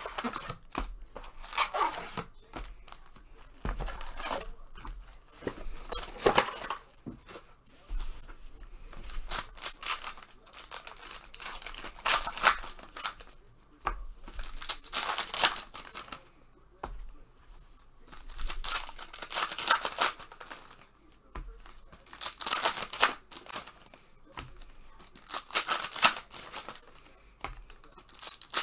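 2019 Panini Prizm Basketball retail card packs being torn open one after another: wrappers ripping and crinkling in repeated short bursts a second or few apart.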